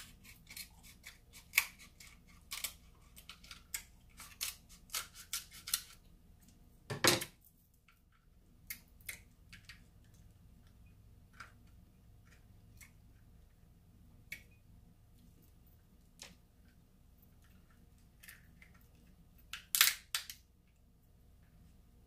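King crab leg shells being cracked and snipped open. A quick run of sharp cracks and clicks over the first six seconds, one heavier crack about seven seconds in, then scattered single clicks and a loud cluster of cracks near the end.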